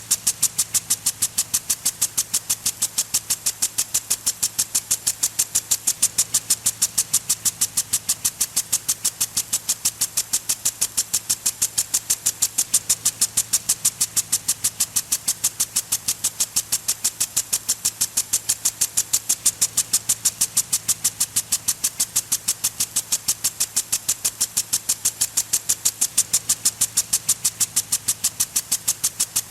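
Garden sprinkler spraying water in quick, regular hissing pulses, about four a second, that keep an even pace throughout.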